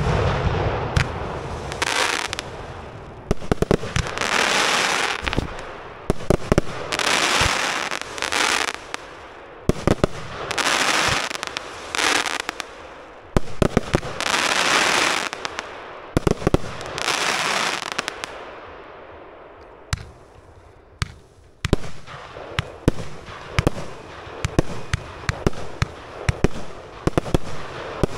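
Fireworks going off: a series of sharp reports, each followed by one to two seconds of crackling hiss, about six times roughly three seconds apart. After that come only scattered pops and cracks.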